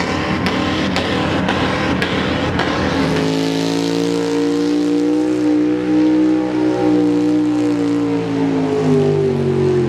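Pickup truck engines at full throttle pulling a weight-transfer sled. For the first three seconds there is a rough, noisy roar with sharp clicks about twice a second. Then a second truck's engine takes over with a loud, steady high-revving drone whose pitch sinks near the end.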